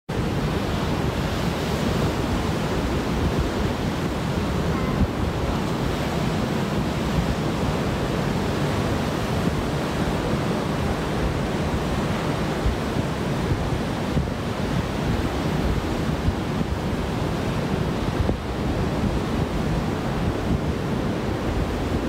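Atlantic surf breaking and washing up a sandy beach in a steady wash, with wind buffeting the microphone.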